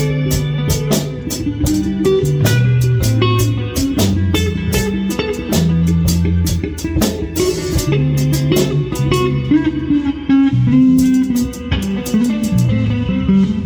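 Live band jam: electric guitar, bass guitar and drum kit playing together, with a walking bass line under the guitar and steady cymbal hits keeping the beat.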